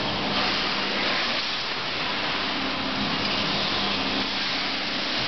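Vaculex vacuum tube lifter's 3 kW vacuum pump running: a steady rushing hiss of air with a faint low hum underneath.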